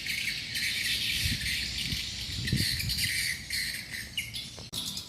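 Steady outdoor chorus of insects such as crickets, with some bird chirps, and a few low muffled bumps. A sharp click comes near the end.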